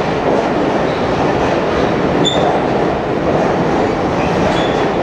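Circus train passenger cars rolling past, a steady rumble of steel wheels on rail. Brief high-pitched wheel squeaks come about two seconds in and again near the end.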